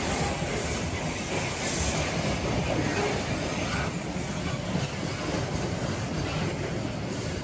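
Coal freight train passing, with a steady rumble of wagons on the rails.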